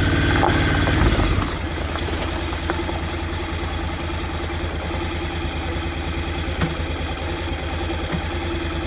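Motorcycle engine running, louder for the first second and a half, then idling steadily.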